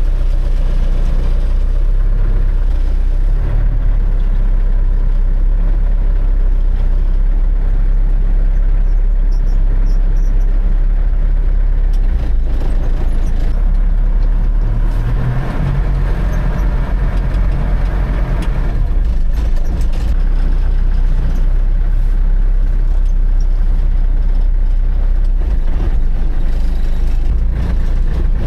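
Dump truck's engine running steadily with a deep drone, swelling louder for a few seconds a little past halfway through.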